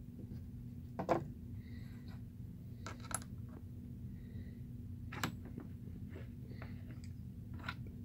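A handful of light, sharp clicks and taps from small metal tools and parts being handled on a wooden workbench, over a steady low hum.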